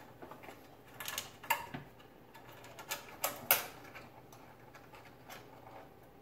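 Plastic cable tie being fastened around a bundle of wires: irregular clicks of the tie's ratchet and the wires being handled, in two short groups, the loudest about three and a half seconds in.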